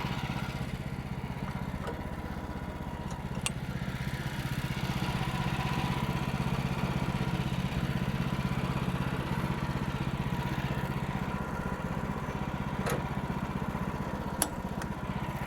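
Gas-engine bandsaw mill running steadily as it saws through a poplar log, with a thin steady whine over the engine hum. There are a few sharp clicks, one early on and two near the end.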